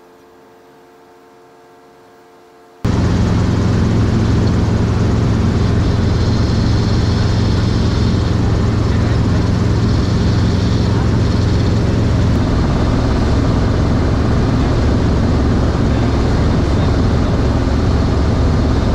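Helicopter cabin noise in flight: the engine and rotor running loud and steady with a strong low hum, heard from inside the cockpit. It cuts in suddenly about three seconds in, after a quiet stretch with faint steady tones.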